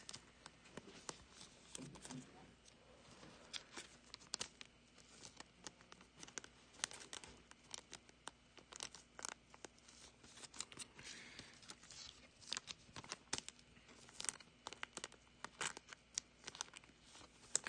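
Faint crinkling and rustling of thin clear plastic card sleeves as football trading cards are slid into them by hand, with many small irregular ticks and rustles.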